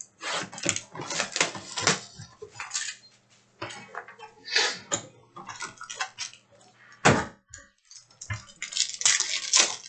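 Trading cards and their packaging being handled: an irregular run of short rustles, slides and light taps, with a sharper knock about seven seconds in.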